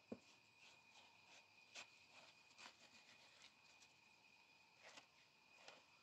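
Near silence: a faint, steady, high-pitched insect drone, with a few soft scattered taps and clicks.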